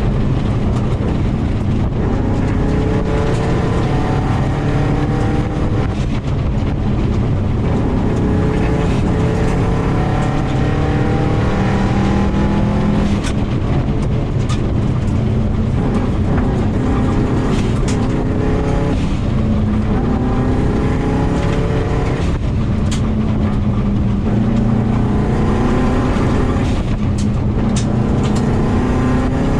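2000 Subaru WRX's turbocharged flat-four engine at rally pace on gravel, heard from inside the car: it repeatedly revs up through the gears and drops back, over a constant rumble of tyres on gravel. There are occasional sharp knocks, as from stones or bumps striking the car.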